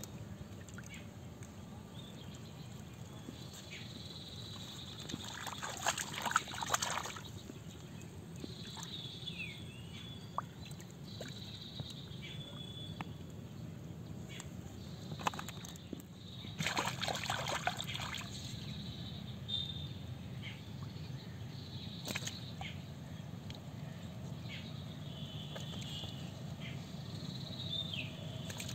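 Hands sloshing and splashing in a shallow hole of muddy water, groping for eels, with two louder bouts of splashing about six and seventeen seconds in.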